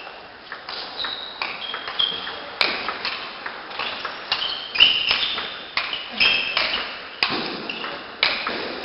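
Table tennis rally: the celluloid ball clicking off the rubber bats and the table in quick alternation, a sharp click every half second or so, each with a brief high ring.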